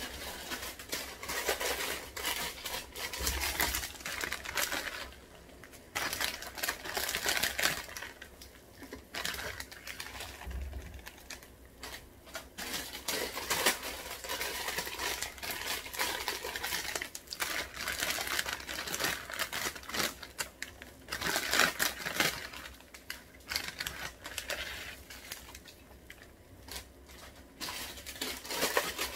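Water boiling hard in a pot on a portable gas stove, with blocks of instant ramen noodles cooking in it: a dense crackling and bubbling that swells and eases every few seconds.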